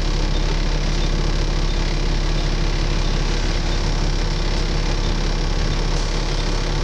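Volvo B7TL double-decker bus's diesel engine running at a steady, unchanging note, with no revving or kickdown.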